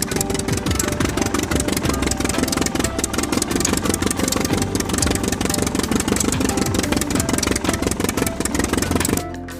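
An engine running steadily with a fast, even chugging pulse, stopping abruptly near the end.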